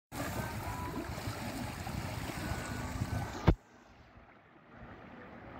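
Water splashing and rushing against the side of a small fishing boat, a steady noisy wash. About three and a half seconds in a single sharp knock cuts it off, and a much quieter wash of water follows.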